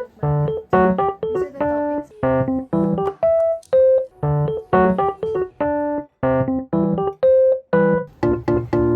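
Background music: an electric piano melody of short, separate notes in a steady bouncy rhythm.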